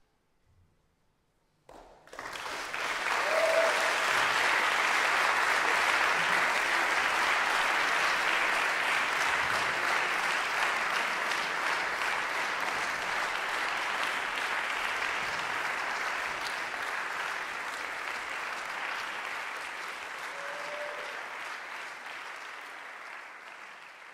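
Audience applauding, starting suddenly about two seconds in after a brief silence, holding steady and then slowly fading near the end.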